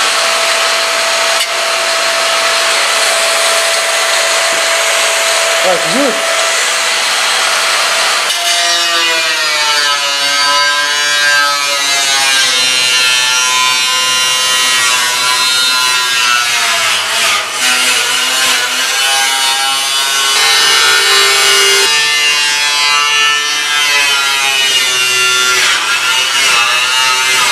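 Angle grinder cutting into the steel of an oil drum: a harsh hiss with a steady whine. About eight seconds in, music with a singing voice comes in and takes over.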